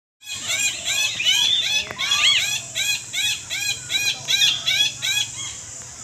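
Parakeets chirping: a fast, regular run of short arched chirps, about two or three a second, with several birds overlapping, stopping shortly before the end.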